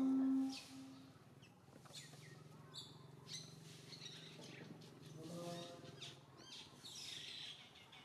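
Small birds chirping on and off in the background, short high chirps over a faint low hum. A loud steady call or tone stops about half a second in.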